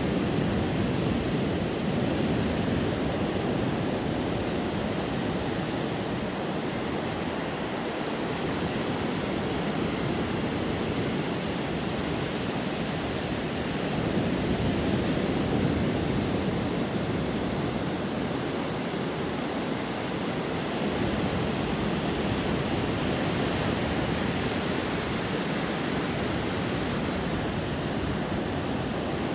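Ocean surf breaking and washing up the sand in a steady rush, swelling a little louder as sets of waves come in, once in the first seconds and again about halfway through.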